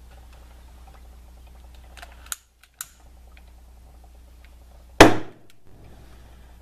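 A foam of hydrogen-oxygen (HHO, Brown's gas) bubbles on top of a water bubbler bottle is ignited and goes off with one sharp, loud bang about five seconds in. Two short sharp clicks come a couple of seconds before the bang.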